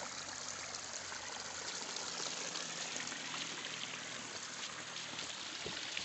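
Shallow stream of water running and trickling over rocks, a steady rush.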